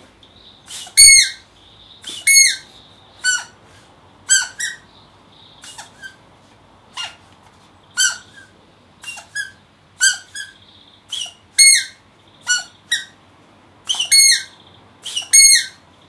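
A yellow rubber squeaky toy squeezed over and over to mimic a woodpecker call: about twenty short squeaks, each dropping in pitch, coming singly or in quick pairs at uneven intervals.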